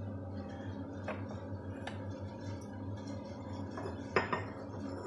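A ceramic cup and saucer clinking as they are handled: a couple of light taps, then a sharper, louder clink just after four seconds in. A steady low hum runs underneath.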